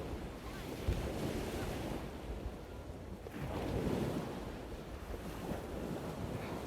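Steady rushing noise that swells about three and a half seconds in and then eases back.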